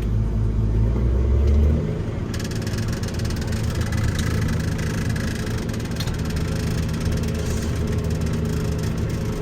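Diesel tractor engine powering a silage bagger, revving up about two seconds in and then running steadily at the higher speed.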